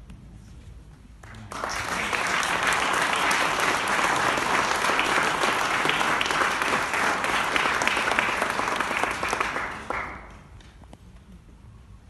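Audience applauding, a dense steady clapping that starts about a second and a half in and dies away near the ten-second mark.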